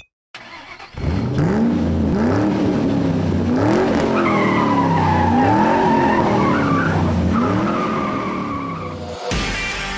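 A car engine revving up and down over and over while tyres squeal, like a drifting or racing car; the squeal runs through the middle of the stretch. Guitar music cuts in near the end.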